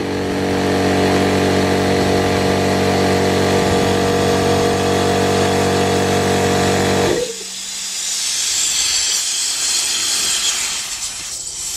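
Clarke Airmaster air compressor's 240 V electric motor and pump running with a steady hum, now starting properly on a new 40 µF start capacitor. About seven seconds in it is switched off at the pressure switch and the motor stops abruptly. A hiss of escaping compressed air then builds and dies away near the end.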